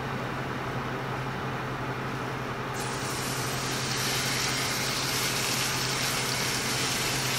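A steady low hum, then about three seconds in a chuck roast goes into a very hot frying pan and starts sizzling with a steady hiss.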